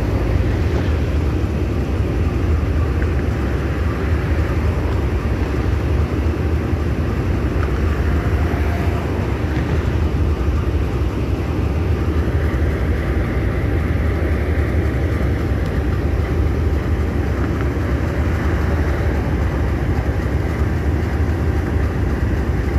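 Minnesota Commercial diesel-electric locomotive idling while the train stands stopped: a steady, low rumble that neither rises nor falls.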